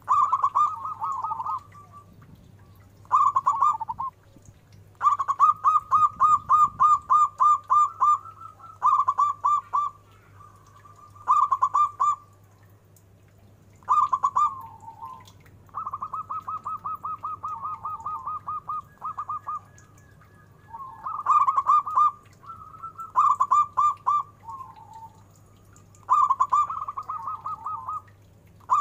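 Zebra dove (perkutut) cooing: about ten phrases, each a quick run of short, purring coos at around four a second, separated by short pauses. It has the deep, full voice prized in local perkutut, and one longer, softer phrase comes about halfway through.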